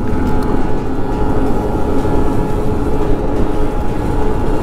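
Motor scooter engine running at a steady cruising pitch under a heavy rush of wind and road noise.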